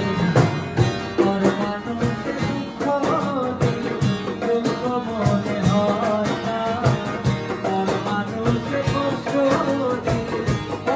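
Live acoustic performance of a Bengali song: a male voice singing over strummed acoustic guitar and harmonium, with a dholak drum keeping a steady beat.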